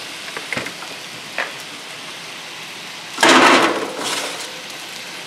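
Steady faint sizzle of peppers and onions frying in a cast iron skillet, with a few light clicks, then a little over three seconds in a loud, short metallic clatter as the oven door is opened and the wire rack holding the steak slides out, followed by a smaller clank.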